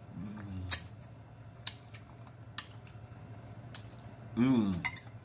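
A man eating noodles with his mouth close to the microphone: sharp wet mouth-smacking clicks about once a second while he chews, with a short hummed "mmm" near the start and another near the end.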